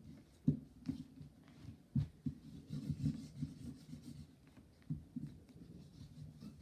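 Markers drawing on paper on a tabletop: soft irregular knocks and rubbing, with the loudest knocks about half a second and two seconds in.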